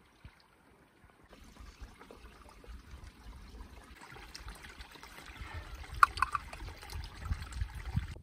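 Water trickling in a shallow spring as a bottle is held under the surface to fill. It grows louder partway through, with a brief gurgle of escaping air about six seconds in.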